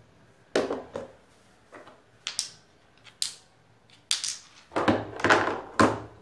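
Stones knocking and scraping against each other as they are handled and set in place: a series of sharp clacks and rattles, the longest and loudest near the end.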